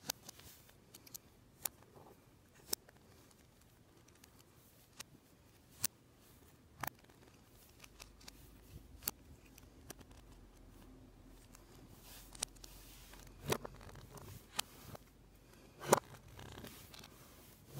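Lego Technic pieces clicking and snapping as pins and axles are pressed into beams and parts are handled and set down: about a dozen scattered sharp clicks, the loudest near the end.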